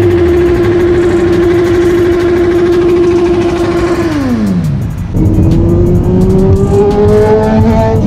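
Sport motorcycle engine revved up and held at high revs for about four seconds, then the revs fall away. A motorcycle then accelerates steadily, its pitch rising slowly.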